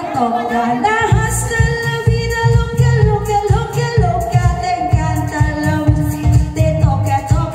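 Women singing a pop song live into microphones over amplified backing music with a steady bass beat; the beat drops out for about the first second, then comes back in.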